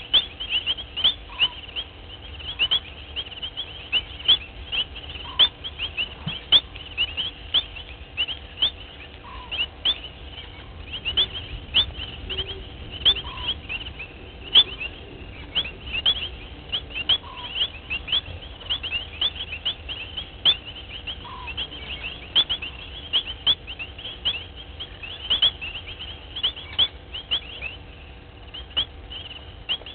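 A dense evening chorus of short, high chirps, several a second and uneven in rhythm, with a softer, lower note repeating about every four seconds.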